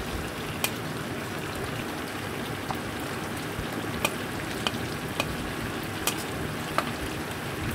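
Mutton frying in mustard oil with spice pastes and powders in a kadai over a high gas flame: a steady sizzle with scattered sharp crackles.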